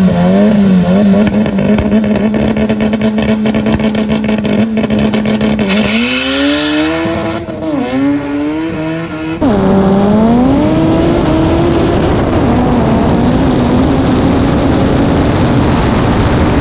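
Honda Civic EG hatchback drag car's engine held at steady high revs on the start line, with a rapid crackle. About six seconds in it launches, rising in pitch with a dip at a gear change. After an abrupt cut, a car engine heard on board climbs in pitch through a gear change, then holds steady at high revs.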